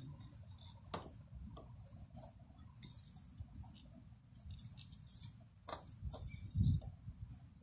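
Pliers working a nail out of a tire tread: scattered light clicks and scrapes of metal on the nail and rubber, with a dull thump near the end.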